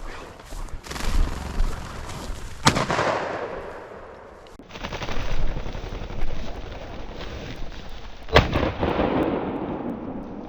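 Two shotgun shots about six seconds apart, each with a ringing echo that trails off, and rustling in between.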